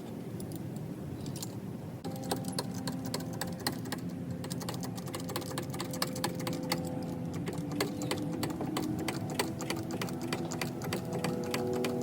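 A small motor-driven mechanism running steadily, with a rapid, irregular ticking rattle over a steady hum. It gets louder about two seconds in, and its pitch rises slightly near the end.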